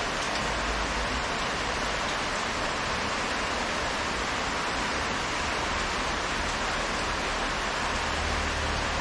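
Steady rain falling: an even, unbroken hiss with no single drops standing out, a monsoon-season shower.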